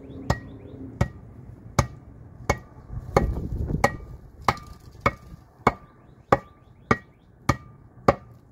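Hammer striking a wooden board held on a 1997–2003 Ford F-150 front rotor hub, about a dozen steady blows, roughly one and a half a second, each with a brief metallic ring: driving the new greased wheel seal down into the hub.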